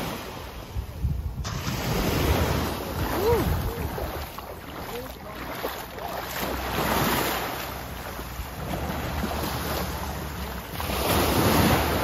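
Small waves breaking and washing up on a sandy beach, swelling and fading about every four seconds, with wind buffeting the microphone.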